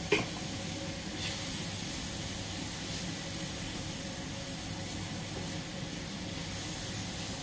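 Vegetables hissing steadily in a hot wok, steam-frying in a little water while being stirred with a silicone spatula. There is a brief clink at the very start.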